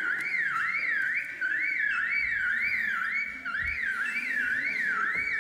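Male superb lyrebird mimicking a car alarm: a whistled siren sweeping up and down about twice a second, in several runs with brief breaks, heard through a lecture hall's loudspeakers.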